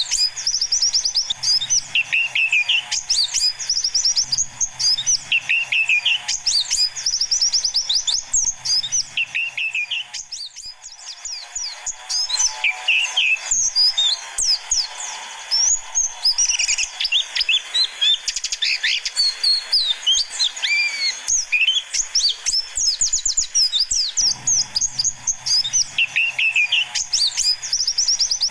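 White-eyes (pleci) twittering and calling, many high rapid chirps over one another. A lower call repeats about every two and a half seconds, breaking off briefly around ten seconds in and coming back near the end.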